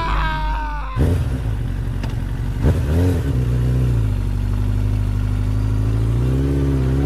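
Motorcycle engine idling, blipped once about three seconds in, then revving up slowly near the end. A brief wavering high tone comes before the engine, which cuts in about a second in.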